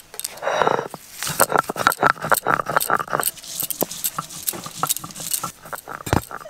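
A quick run of small clicks, knocks and clinks from hands handling food and utensils, after a brief rustle. A single heavy thump follows about six seconds in, as a brick is set down.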